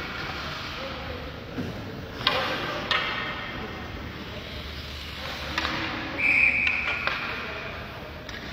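Sharp knocks of hockey sticks and puck on the ice and boards, a handful of separate hits. About six seconds in, a high steady whistle blows for about a second.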